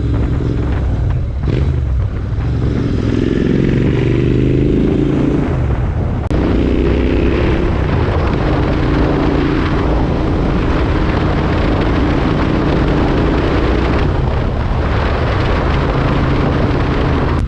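Royal Enfield Interceptor 650's parallel-twin engine running through an aftermarket AEW exhaust as the bike accelerates. The engine pitch rises, drops briefly at gear changes about two and six seconds in, then holds steady at cruising speed.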